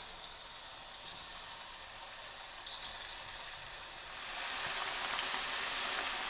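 Raw potato chips coated in gram flour crackling as they are dropped a few at a time into hot deep-frying oil in a wok. About four seconds in the sizzle swells into a steady, louder frying hiss as more chips go in.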